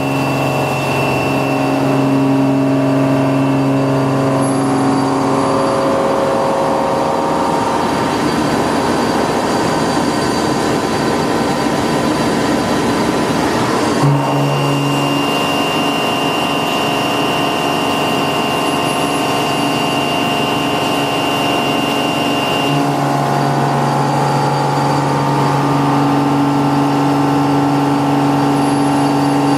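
Milling machine running with an insert milling cutter cutting metal: steady held machine tones that change level every several seconds, with a rougher, noisier cutting stretch in the middle.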